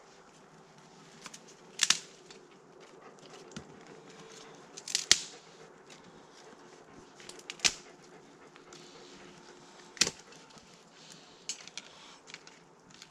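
Dry twigs snapping and crackling as kindling is broken and fed into a small campfire, with four sharp snaps a few seconds apart and smaller clicks near the end. A faint steady hum sits underneath.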